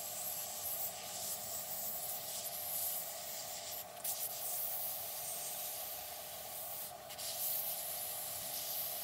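Hot air rework gun blowing steadily while shrinking heat-shrink tubing over soldered wires: a steady airy hiss over a constant fan whine, the hiss dipping briefly twice.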